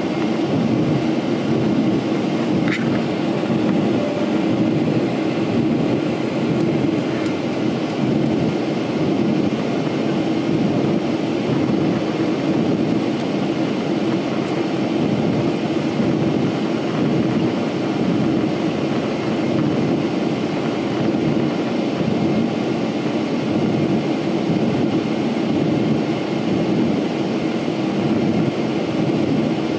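Steady, deep drone of an airliner's jet engines and rushing air, heard inside the passenger cabin in flight.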